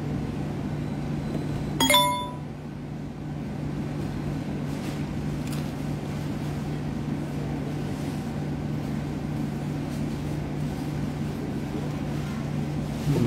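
Steady low mechanical hum, with one short, bright ringing clink about two seconds in.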